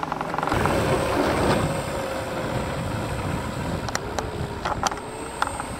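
Electric ducted-fan model jet's fan whining at low throttle as it lands and rolls out along the runway, its pitch slowly sagging. A few sharp clicks come near the end.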